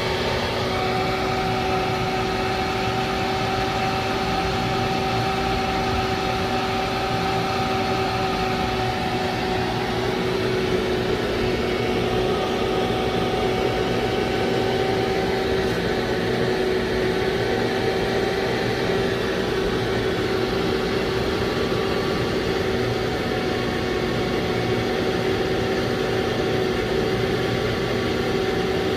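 Steady mechanical hum of a running machine, with a couple of held tones over a rushing noise and no pauses.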